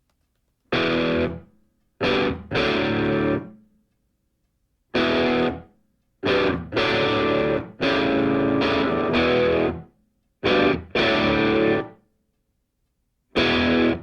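Music: distorted electric guitar playing short, loud chord phrases that cut off into full silence between them.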